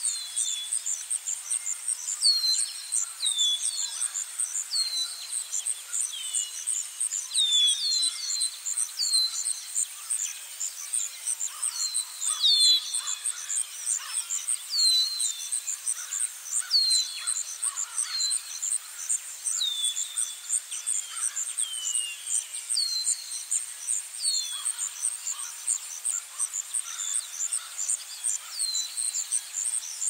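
Forest ambience: insects trilling in a steady, high pulsing tone, with birds giving short, downward-slurred whistled calls every second or two.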